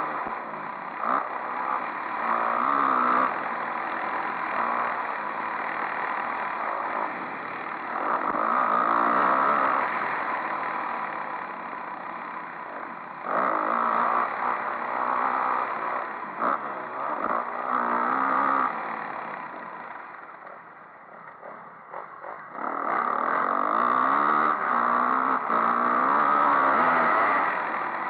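Motocross bike engine heard on board while riding a dirt trail, revving up and falling back again and again as the rider works the throttle through the gears. About two-thirds of the way in the throttle closes and the engine drops back for a couple of seconds, then it picks up hard again.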